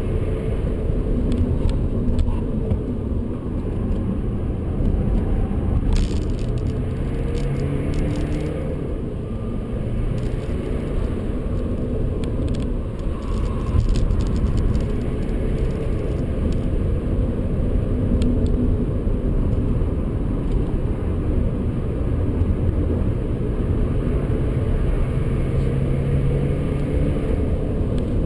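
Cabin sound of a BMW 125d's four-cylinder turbodiesel under way at about 100 to 120 km/h: the engine note rises and falls as the car accelerates and eases off through the corners, over a steady rumble of road and tyre noise. A few light ticks come through around six to nine seconds in.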